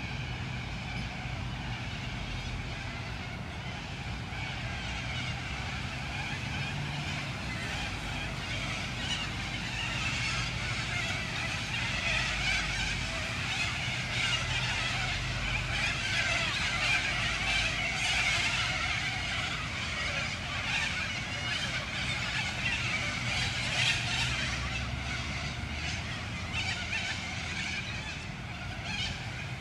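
Park ambience after rain: a steady low hum of distant city traffic, swelling louder through the middle, with many short bird chirps and calls over it.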